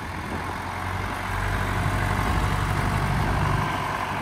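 John Deere 1640 tractor's three-cylinder diesel engine running as the tractor drives along towing a trailer: a steady low engine note that grows a little louder after about a second.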